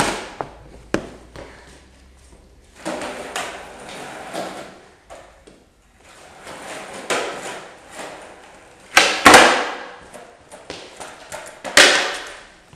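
Skateboard on a wooden plank floor: the wheels roll, and the board pops and slaps down in sharp clacks during tre flip attempts. The loudest clacks come about nine and twelve seconds in.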